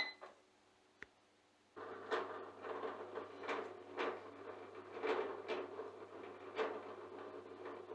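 Front-loading washing machine starting a spin cycle: a control-panel beep, a click about a second in, then from about two seconds a steady low hum with irregular knocks and rustles as the drain pump and drum motor run and the drum turns. With the faulty water-pressure sensor dealt with, the motor now runs instead of only the pump.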